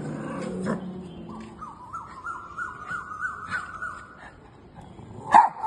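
A small fluffy dog barks once, loud and short, near the end. Before the bark, a run of short high rising calls repeats about four times a second for a few seconds.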